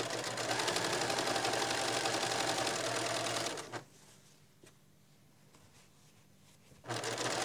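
Electric domestic sewing machine stitching a binding strip onto a quilt edge with a rapid, even needle rhythm. It stops about halfway through, stays quiet for about three seconds, then starts stitching again near the end.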